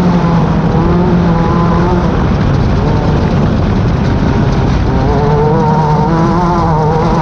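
Class 10 off-road race car's engine running hard under way, a loud steady drone whose pitch wavers a little, shifting upward about five seconds in.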